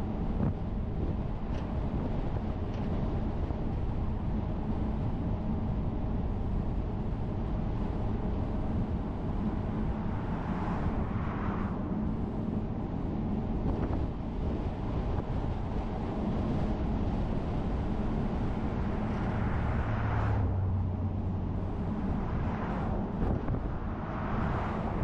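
Steady rumble of a car driving, engine and tyre noise with a low hum, and a few brief louder swells of passing noise.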